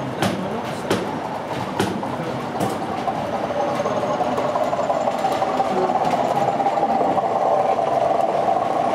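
0 gauge model diesel locomotive hauling tank wagons along the track: a steady drone from the locomotive sets in about two and a half seconds in, after a few sharp clicks from the wheels on the track.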